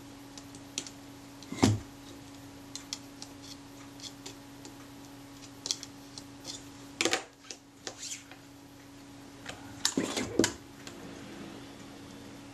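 Small metallic clicks and taps of screws, shims and a screwdriver on a Rolleiflex Automat TLR camera body as it is reassembled by hand, with louder knocks about two seconds in, about seven seconds in, and a cluster around ten seconds. A steady low hum runs underneath.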